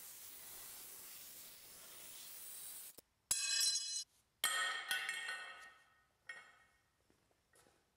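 A steady hiss for about three seconds, then two loud metallic clanks a little over a second apart, each ringing brightly, the second fading out slowly, with a few light clinks near the end: the metal frame and handle of an air compressor being cut and handled as the handle comes off.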